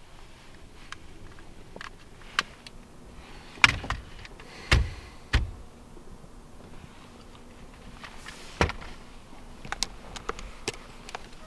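Scattered clicks and dull thumps with soft rustling, a person shifting in a car seat; three heavier thumps come near the middle, then a sharp knock a few seconds later.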